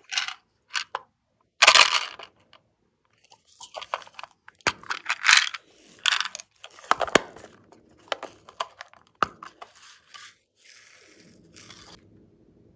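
Small plastic containers clicked open and shaken, tipping sequins and beads out onto slime: a string of sharp clicks, rattles and rustles, with a brief steady hiss near the end.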